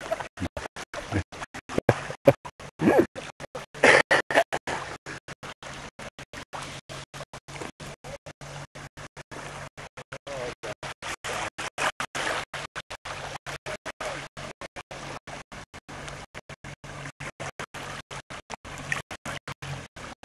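Small fishing boat's outboard motor running as a steady low hum while the boat moves across the lake. There are louder uneven bursts in the first few seconds, and the sound cuts in and out in rapid, regular dropouts throughout.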